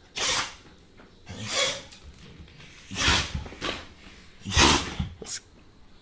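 A dog sneezing four times in a row, about a second and a half apart, each a short sharp burst of air, with a couple of smaller sneezes just after the third and fourth.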